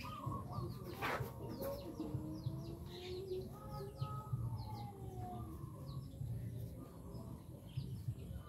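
Small birds chirping in short, quick chirps again and again, with a longer, lower gliding call in the middle.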